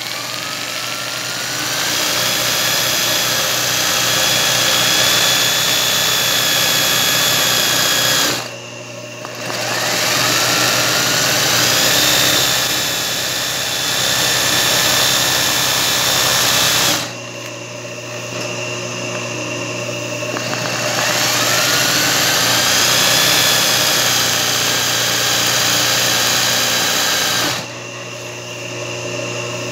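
Singer 20U industrial zigzag sewing machine stitching free-motion embroidery in three runs, each starting with a rising whine as it speeds up. It stops briefly about eight seconds in, for a few seconds around seventeen seconds, and again near the end, while a steady motor hum carries on through the pauses.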